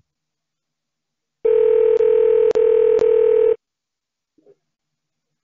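Telephone ringing tone on the line while a call is being connected: one steady ring about two seconds long, with three faint clicks in it.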